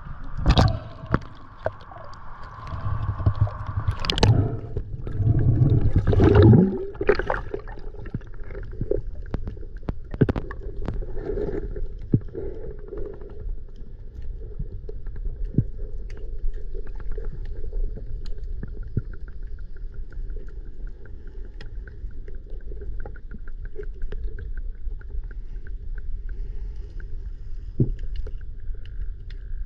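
Underwater ambience picked up through a camera housing: a steady low rumble of moving water with scattered sharp clicks and knocks, busier and louder during the first several seconds.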